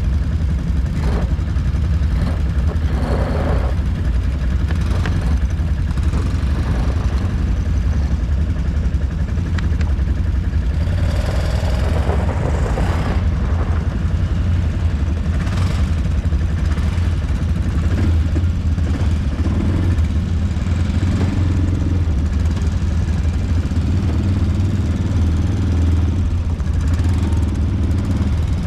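ATV engine running steadily under way, with occasional short knocks and rattles.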